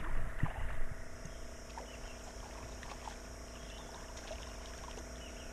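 Shallow creek water trickling and lapping, with scattered small splashes and ticks, over a steady faint high hum. A louder low rumble comes in the first second.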